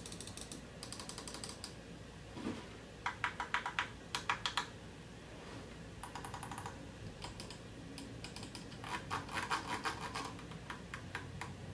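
Buttons of a TeckNet Raptor budget gaming mouse clicked in quick runs of several clicks each, with short pauses between runs, heard faintly from 3 or 4 feet away: a sound test of its different buttons.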